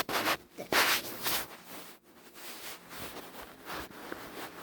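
Short rustling and handling noises, several in the first second and a half, then fainter ones.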